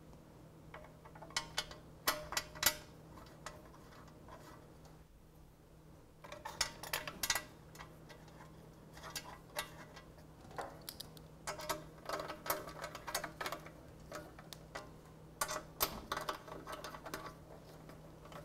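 Small metal clicks and taps in scattered clusters as M6 flange-head bolts are threaded in by hand and turned with a small hand key, securing nylon sliders to an aluminium skid plate.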